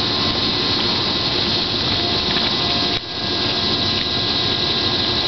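A steady machine-like hiss and hum carrying a few faint steady tones, with a brief dip about three seconds in.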